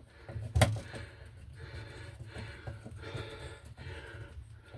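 A screw being driven in by hand until snug: one sharp click about half a second in, then faint scraping and small ticks over a low steady hum.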